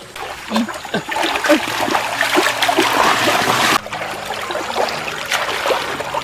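Water splashing and sloshing, dense and loud for the first few seconds, then dropping abruptly about four seconds in to a softer splashing and trickle.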